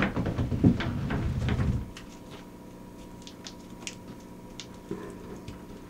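Handling noises as small magnets, felt pads and masking tape are worked by hand and placed against the inside of a fibreglass hull: a busy spell of rustling and knocks for the first two seconds, then only faint scattered light ticks.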